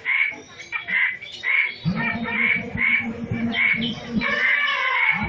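Crows cawing over and over, about twice a second, from a recorded jungle sound-effect track played over loudspeakers; a low buzzing drone joins about two seconds in.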